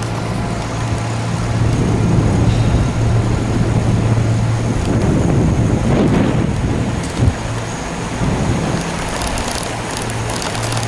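Wind rumble on the microphone and tyre noise as a bicycle rolls down a concrete parking-garage ramp, over a steady low hum, with a single knock about seven seconds in.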